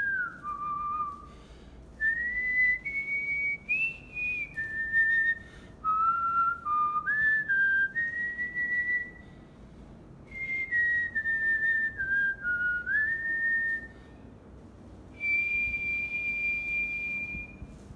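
A man whistling a tune through pursed lips: phrases of stepped notes with short pauses between them, ending on one long, high held note.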